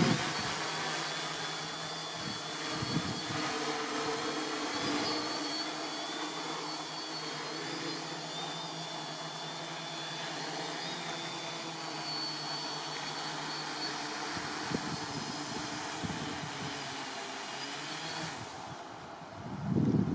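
Multirotor drone's electric motors and propellers running as it flies and comes in to land: a steady hum with a faint wavering whine, with wind noise over it.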